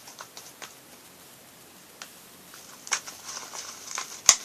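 Thick, sticky slime being stirred in a small pot, giving scattered soft clicks and crackly squelches, with a sharper click near the end.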